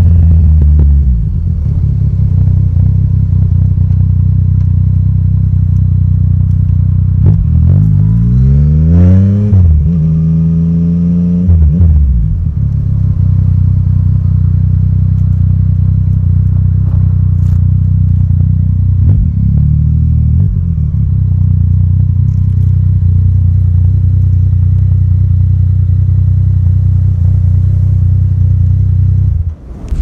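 Yamaha Tracer 900 GT's three-cylinder engine, on an Akrapovic exhaust after a Woolich dyno tune, running at low revs while riding slowly. About a third of the way in it revs up and back down, then runs steadily at low revs, and it stops just before the end.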